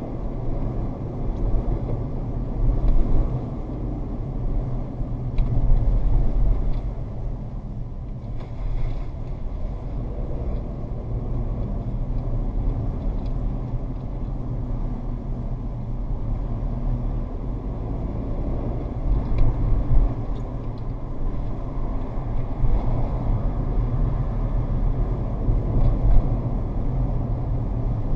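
Steady road and engine noise inside a moving Toyota RAV4, heard through the dash cam's built-in microphone, with the low rumble swelling a little louder now and then.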